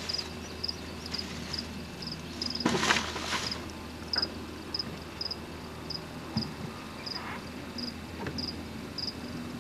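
An insect chirping in short, high pulses about twice a second, over a steady low hum. A brief burst of noise comes about three seconds in and is the loudest thing heard.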